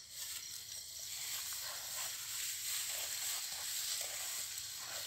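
Dry grass and rice straw rustling and swishing as someone pushes through it on foot, in irregular brushes over a steady high hiss.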